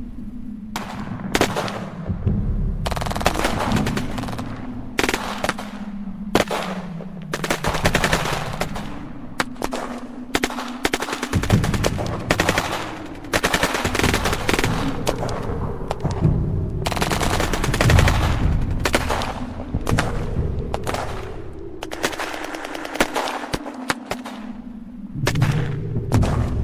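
Battle-scene gunfire sound effect: ragged, overlapping bursts of automatic machine-gun fire with scattered single shots, over a low steady rumble.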